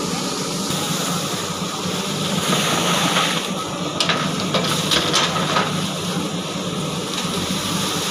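JCB 3DX backhoe loader's diesel engine running steadily under load, with a few sharp clanks about halfway through.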